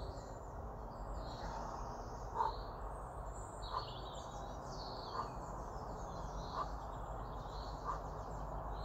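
Small birds chirping and calling over a steady low background hum, with a faint short sound repeating about every second and a half.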